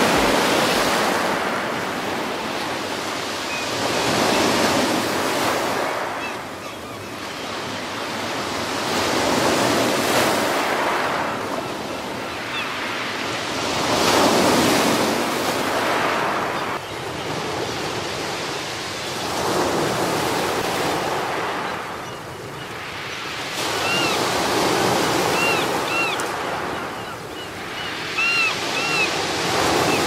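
Ocean surf: waves breaking and washing in, swelling and fading in slow surges about every five seconds, with a few short faint high chirps near the end.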